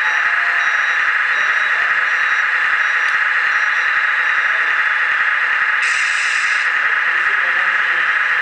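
Hydraulic RC model excavator's pump running with a steady loud whir as the machine backs along a loading ramp. Faint high beeps sound about twice a second for the first few seconds, and a brief hiss comes about six seconds in.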